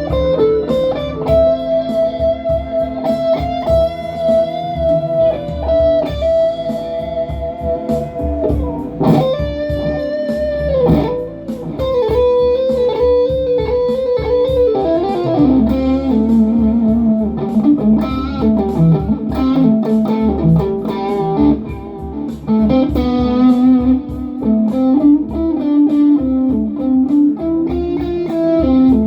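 Les Paul Hurricane electric guitar playing a slow, feel-driven lead through delay and reverb pedals, with long held notes, a couple of string bends and a descending run about halfway through.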